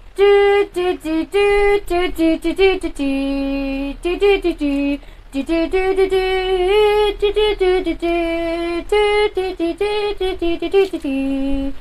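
Musical truck horn playing a song tune: a string of short and held notes stepping up and down in pitch, with a brief break about five seconds in.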